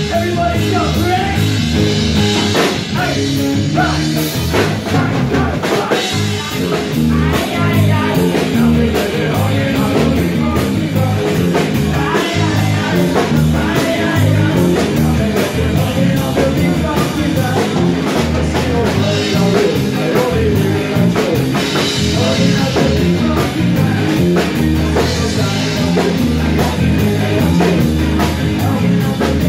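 Live rock band playing a cover of a ska song, with a lead singer over electric guitars and a drum kit keeping a steady beat.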